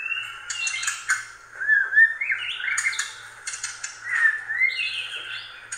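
Several mice squeaking in short high chirps that rise and fall, over sharp clicks of teeth gnawing kernels off an ear of corn.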